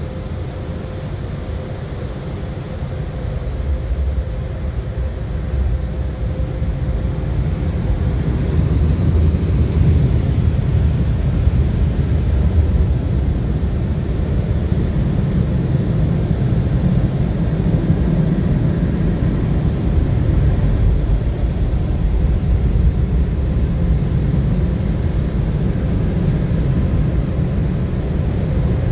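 Tunnel car wash dryer blowing warm air through overhead nozzles onto the car, a steady low rushing noise heard from inside the cabin. It grows louder over the first eight or nine seconds as the car moves under the nozzles, then holds steady.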